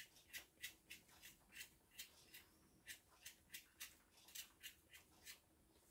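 Faint, quick scrapes of a kitchen knife scraping the thin skin off small new potatoes, about fifteen short strokes at two to three a second.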